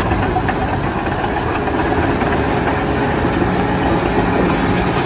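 Heavy machinery running steadily, a loud continuous mechanical noise.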